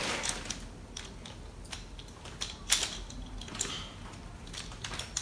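Light, irregular plastic clicks, about one a second, from a small plastic Trolls Happy Meal toy being handled and its moving arm worked.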